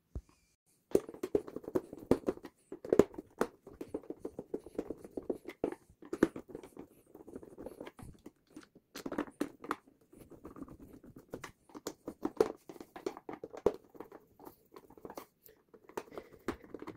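Screwdriver turning screws into the plastic case of a clock radio: a dense, irregular run of small clicks and scrapes that starts about a second in.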